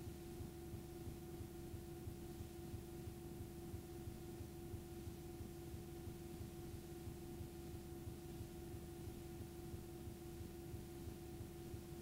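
Steady electrical hum from videotape playback: a constant mid-pitched tone over a low buzz, with no program sound, as the blank, unrecorded end of the tape plays back as static.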